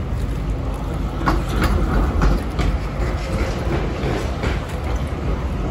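City street traffic with the low rumble of trams and passing vehicles, and a few sharp clicks about a second and a half in.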